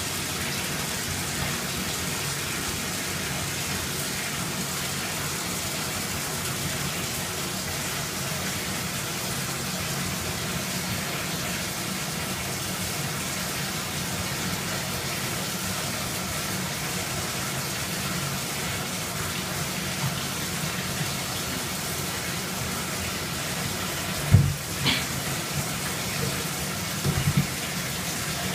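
Steady rush of water, like a bathtub filling from the tap. There is a sharp knock about 24 seconds in and a few softer knocks near the end.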